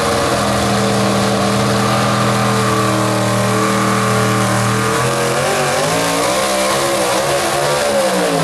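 Pulling truck's engine at full throttle, holding steady high revs, then from about five seconds in the revs waver up and down and fall away near the end.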